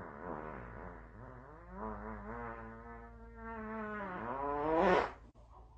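A long, buzzy fart sound effect with a wavering pitch, swelling to its loudest near the end before cutting off.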